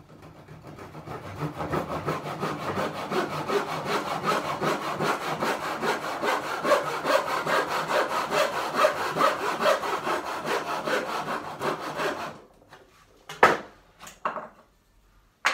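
Hand tenon saw cutting across the shoulder of a tenon in clamped timber: quick, steady back-and-forth strokes that start softly and grow louder over the first couple of seconds, stopping about twelve seconds in. Near the end there are two sharp knocks.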